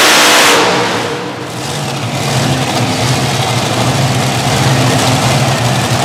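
Unlimited-class pulling tractor's multiple engines at full throttle, shut back less than a second in at the end of a full pull, winding down and settling into a steady idle.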